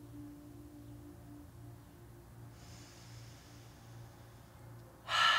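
A woman breathing audibly: a soft breath in starts about halfway through, and a louder breath comes suddenly near the end, over a faint steady low hum.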